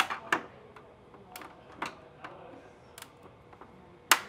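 Plastic knockouts in the back wall of a Qolsys Hardwire 16-F alarm panel enclosure snapping as they are broken out: about six sharp cracks and clicks, the loudest at the start and about four seconds in.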